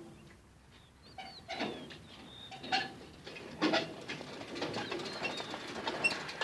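Birds chirping, with a few louder clattering knocks roughly a second apart from about a second and a half in.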